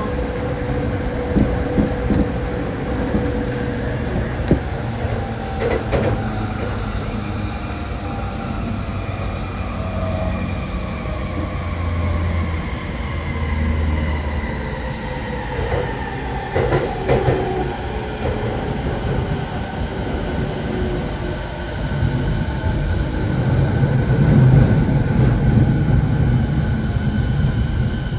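Tokyo Waterfront Area Rapid Transit 70-000 series electric train running on elevated track, heard from inside the passenger car: steady running noise with a motor whine slowly falling in pitch and a few short knocks. The low rumble grows heavier near the end.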